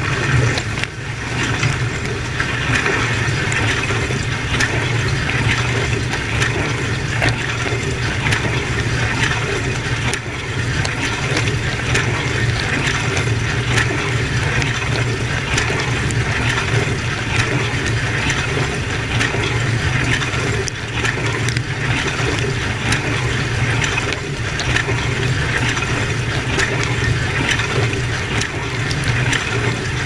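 Dishwasher wash cycle heard from inside the tub: jets of water spraying and splashing onto the dishes, racks and stainless-steel walls, with fine patters of droplets, over the steady hum of the circulation pump.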